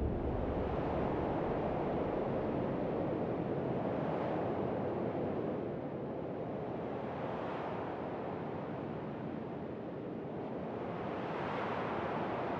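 A steady rushing noise, like surf or wind, that swells and eases gently every few seconds.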